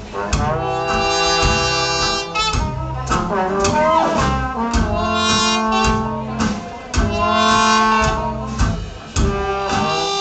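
Instrumental music: sustained, reedy chords over a steady beat and alternating bass notes.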